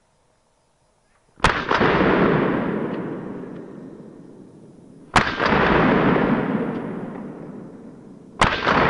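Three shotgun shots fired at a running hare, about three and a half seconds apart, the last near the end. Each shot is followed by a long rolling echo that dies away over a few seconds.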